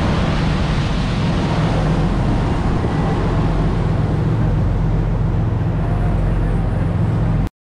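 Motor yacht running at speed: a steady low engine drone under the constant rush of its churning wake.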